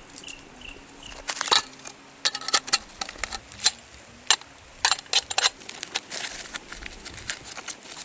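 Camp gear being handled: a string of sharp, irregular clicks and knocks from fitting together a folding camp table's aluminium legs and setting up the table, with a few faint short high chirps in the first second.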